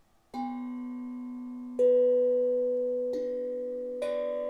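Harmonic Star 11-note steel tongue drum struck with mallets: four single notes of different pitch, each ringing on long and overlapping the next, the second the loudest.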